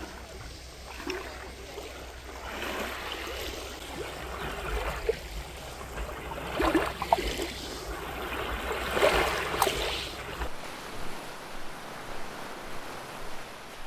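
Small waves lapping and washing up a gravelly shore, swelling and falling away a few times several seconds apart.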